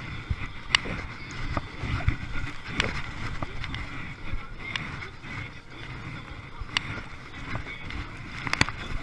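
Choppy sea water splashing and slapping around a sit-on-top kayak in strong wind, with sharp knocks or splashes every second or two over a steady wind rumble.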